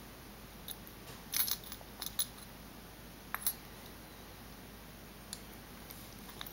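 Small, faint clicks and taps, a few scattered over several seconds, from a wire being worked into a plug's brass terminal by hand.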